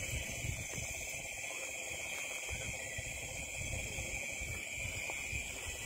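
Steady night chorus of calling insects, two constant high-pitched drones, over the low rustle and thud of footsteps pushing through tall grass.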